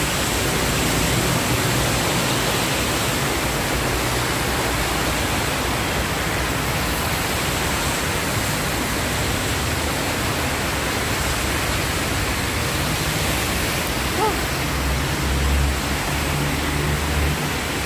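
Heavy rain pouring steadily, a constant even hiss, with some low rumbling in the last few seconds.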